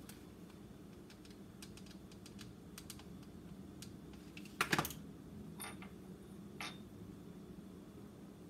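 Scattered light clicks and taps of small craft items being handled on a countertop, with a louder clatter about four and a half seconds in and two short ringing clinks after it.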